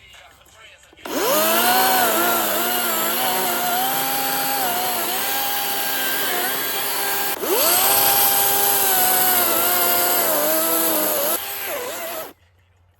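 Gas chainsaw revving up and cutting into a tree stump, its engine pitch wavering as it bogs and recovers under load. It breaks off sharply about seven seconds in, runs and cuts again, then drops back and stops about a second before the end.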